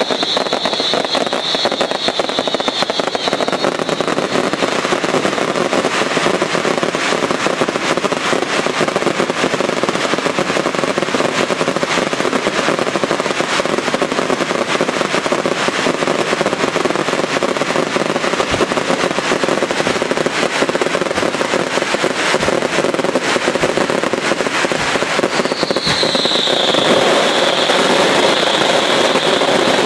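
Daylight fireworks barrage: a dense, continuous stream of shells bursting and crackling overhead. A high whistling tone rides over it at the start and comes back, dipping slightly in pitch, near the end as the barrage grows a little louder.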